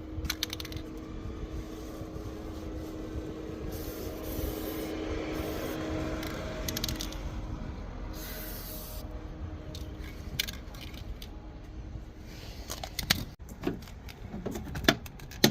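Aerosol can of spray lubricant being shaken, then several short hissing sprays of lubricant onto a squeaky car door check, followed by scattered clicks and knocks.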